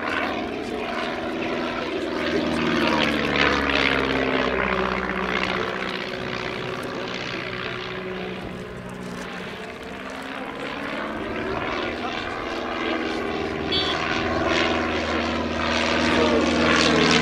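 Stampe SV4C biplane's piston engine and propeller droning through an aerobatic display, the engine note sliding down and back up in pitch as it manoeuvres. It grows quieter about halfway through and louder again near the end.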